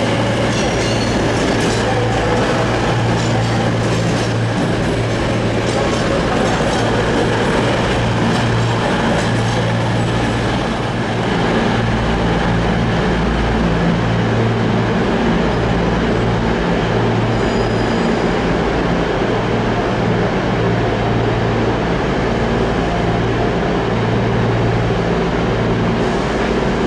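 CrossCountry Voyager diesel-electric multiple units running, their underfloor diesel engines humming steadily. Through roughly the first half, wheels click over rail joints.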